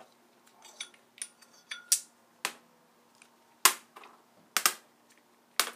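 Flywheel alternator magnets clacking as they are handled and set down on a sheet-metal bench top: a string of about nine sharp clicks, the loudest a little past halfway and near the end.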